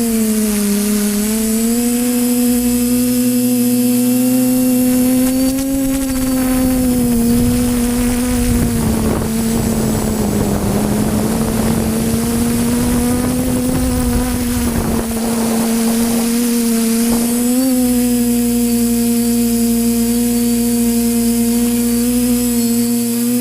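Electric motors and propellers of an FPV quadcopter whining steadily, heard through its own onboard camera, the pitch wavering slightly with throttle. A rushing air noise swells through the middle stretch and fades out again.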